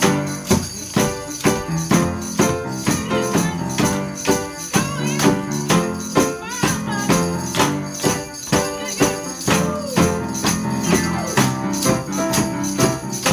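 Live instrumental music: an upright piano playing chords with a tambourine jingling on a steady beat, about two strikes a second.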